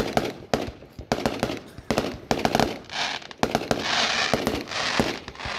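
Aerial fireworks bursting: a rapid run of sharp bangs, then a dense crackle for about two seconds near the end.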